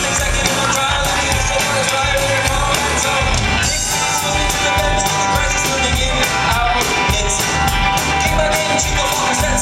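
Live rock band playing a song with electric guitar, bass guitar and a steady drum beat, and a man singing over it through a handheld microphone.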